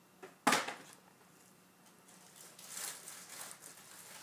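Paper rustling as a picture book's pages are handled: one sharp rustle about half a second in, then a softer one near three seconds.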